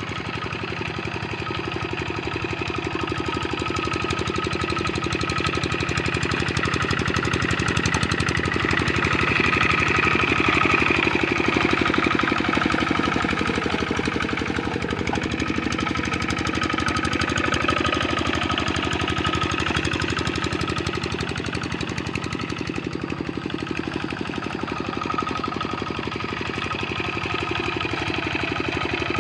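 Kubota RD65 single-cylinder diesel engine of a hand tractor running steadily at work in paddy mud, with a fast, even firing beat; it swells a little louder around ten seconds in, then settles back.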